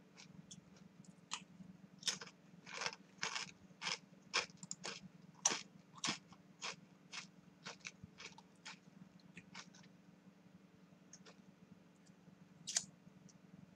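Potato chips being chewed: a run of crisp crunches, about two a second, for several seconds, then a single crunch near the end.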